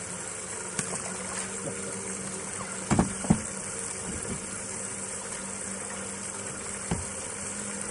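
A boat motor hums steadily while water laps against the hull. A few sharp knocks come through, the loudest a pair about three seconds in.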